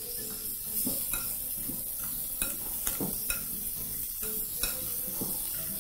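A fork mixing guacamole in a glass bowl, with light irregular clicks of the fork against the glass, over a steady sizzle from pork ribs browning on a griddle.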